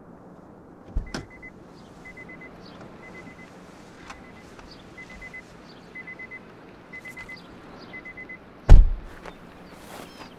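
A car's warning chime pipping in quick runs of three or four high beeps, about once a second, over a low steady hum. A small thump about a second in, and a heavy thump near the end that is the loudest sound.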